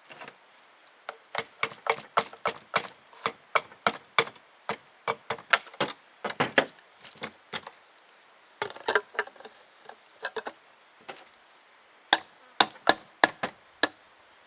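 Irregular sharp clicks and knocks of a Paslode 5300 series nailer's parts being fitted back together by hand, over a steady high-pitched whine.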